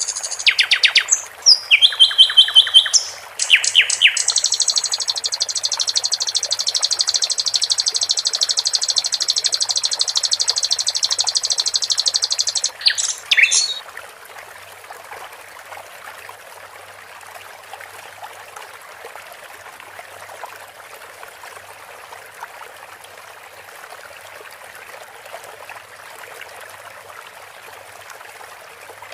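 Sikatan londo song: loud high chirps and trills, with a long, fast, rattling trill in the middle, stopping about halfway through. Under it runs a steady trickling stream, which is all that is left for the second half.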